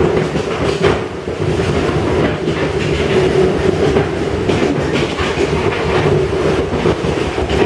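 Passenger train carriage in motion, heard from inside: a loud running rumble with a steady drone and irregular knocks as the carriage shakes and rattles on the track.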